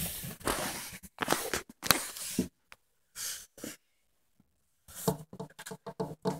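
Rustling and brushing noise for about two and a half seconds, a short scrape a little after three seconds, then a quick run of soft knocks or taps near the end.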